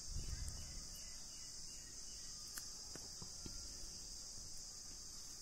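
Steady high-pitched chirring of crickets in the background, with a few faint ticks in the middle.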